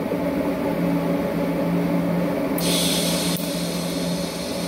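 TIG welder humming steadily. About two and a half seconds in, a 90-amp DC arc strikes with a bright burst of hiss lasting under a second, then settles into a softer steady hiss as a bolt is tacked to steel.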